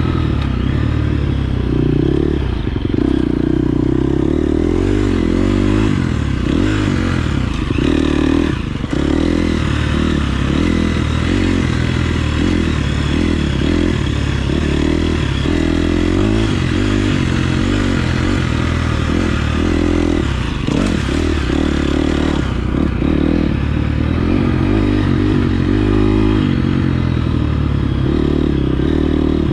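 KTM 350 SX-F motocross bike's single-cylinder four-stroke engine being ridden, its pitch rising and falling with the throttle as it accelerates and backs off in quick changes.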